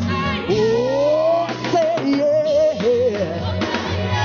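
Gospel praise song: a voice sings a melody over band accompaniment, holding one long upward-gliding note early on.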